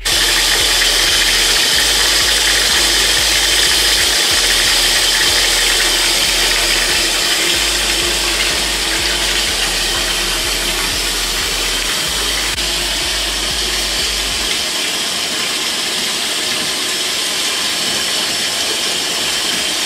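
Bathtub faucet running at full flow, water pouring into a filling tub with a steady rushing splash.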